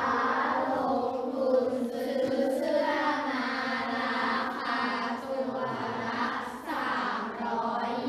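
A class of schoolchildren reading a maths word problem aloud together in Thai, in a slow, sing-song unison chant.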